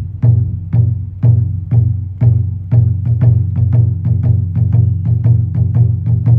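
Music: struck percussion over a low sustained drone, the hits coming about twice a second and then quickening to about four a second about halfway through.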